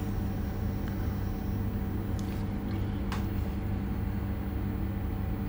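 Steady low hum with a constant pitch, plus two faint clicks about two and three seconds in.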